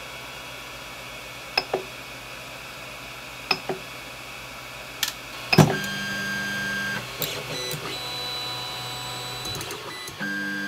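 Creality Ender 3 Pro 3D printer auto-homing: a few short clicks from the control knob, then, about halfway through, the stepper motors whining as the axes drive to their endstops, in several stretches of changing pitch.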